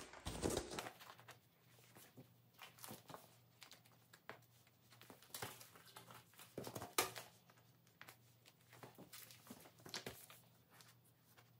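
Quiet paper rustling with scattered soft clicks as loose sheets are handled and turned in a ring binder.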